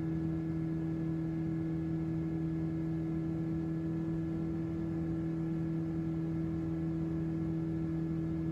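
Steady drone of a light high-wing airplane's engine and propeller in level cruise, heard inside the cabin: an even hum holding two strong unchanging tones.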